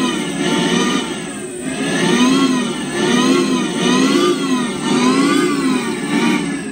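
Ninebot engine sound speaker playing a simulated engine note that revs up and down about six times, roughly once a second. It cuts off near the end.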